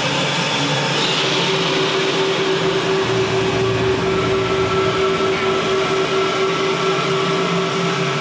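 Steam-train sound effect from the exhibit's soundtrack, played through the hall's speakers. It is a steady rushing rumble, with held tones coming in about one second and four seconds in.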